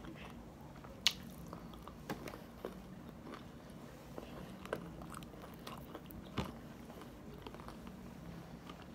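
Fried chicken being eaten close to the microphone: scattered crisp crunches of the breading and quiet chewing, with about half a dozen sharp crunches, the loudest about a second in.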